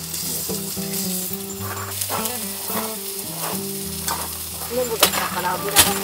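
Food sizzling and crackling as it cooks, with two sharp clicks near the end, under soft background music of sustained low notes.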